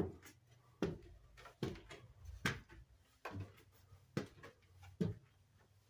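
Footsteps climbing worn wooden stairs, a thud on each tread, seven steps at a steady pace of a little over one a second.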